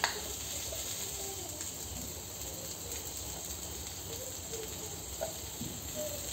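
Hot oil sizzling steadily and faintly in a kadai with a green chilli frying in it.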